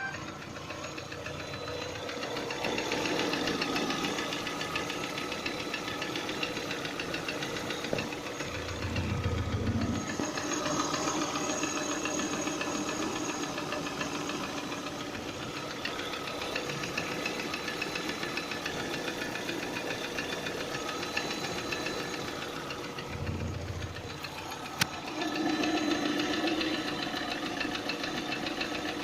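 Lada Priora petrol engine running with a diesel-like clatter, a piston knock, a fast even knocking that carries through the steady engine sound. It grows louder a few times, with a couple of brief low thumps and one sharp click about 25 seconds in.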